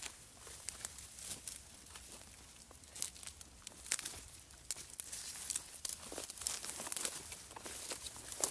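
Leafy fodder rustling and tearing, an irregular run of small crackles and snaps.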